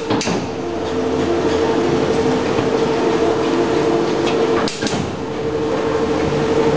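Electric dough sheeter running, its conveyor belts and rollers carrying a slab of croissant dough laminated with margarine, with a steady hum. Sharp clunks come as the direction lever is thrown, once at the start and twice more just before five seconds in.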